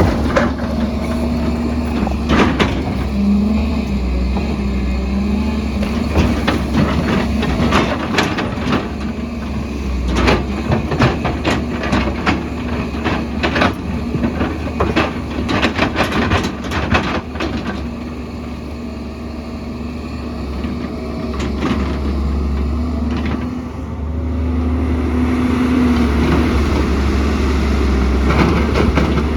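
Excavator's diesel engine running steadily under load. From about 8 to 17 seconds in come many sharp clanks and scrapes, as the bucket works rock and soil.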